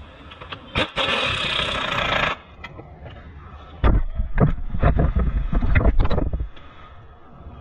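Pneumatic tool on a compressed-air hose runs in one steady hissing burst of about a second and a half, stopping abruptly. A few seconds later come loud knocks and rumbling from the camera being handled and moved.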